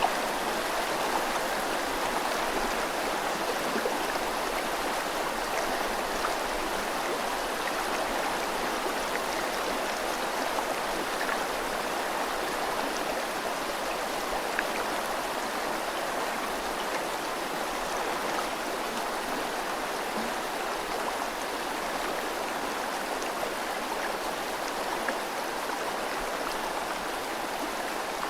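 River water flowing steadily with rain falling, an even rush broken only by faint scattered drop ticks.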